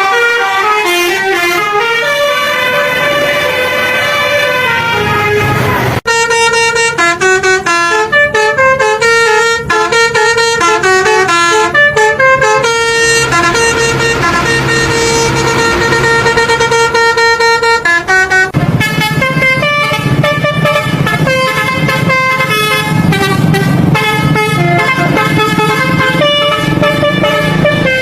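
Tour bus's basuri telolet air horn playing fast melodic tunes: quick runs of pitched horn notes that step up and down. The tune switches abruptly about six seconds in and again about halfway through, with a low rumble under the notes in the last part.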